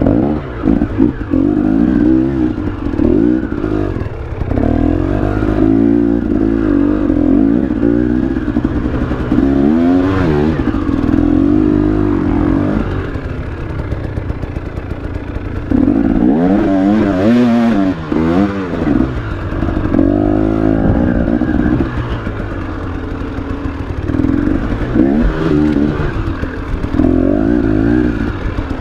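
Enduro motorcycle engine revving up and down in repeated bursts of throttle, its pitch climbing and dropping, with a couple of quieter spells where it eases off.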